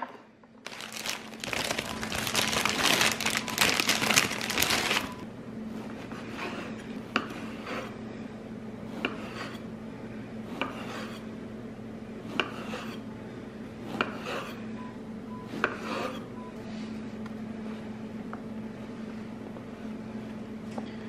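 A plastic bread wrapper crinkling loudly for a few seconds, then a knife slicing through a crusty ciabatta loaf on a wooden cutting board, with a sharp tap about every second and a half to two seconds as the blade meets the board. A steady low hum runs underneath.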